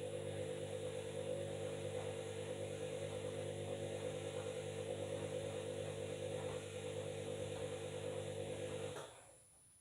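Washing machine motor running with a steady hum and a slight regular pulsing, then stopping abruptly about nine seconds in.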